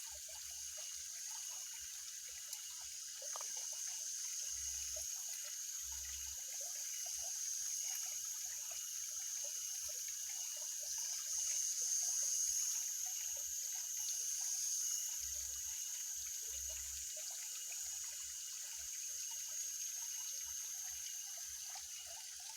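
Water trickling and dripping, with a steady high-pitched drone behind it and a few dull low thumps.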